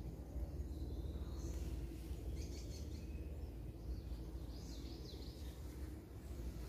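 A few short, high bird chirps over a steady low rumble of background noise.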